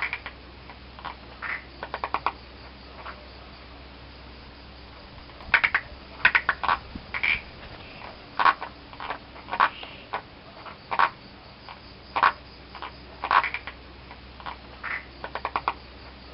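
Several frogs calling: short sharp clicking croaks at irregular intervals, some single and some in quick runs of three to five.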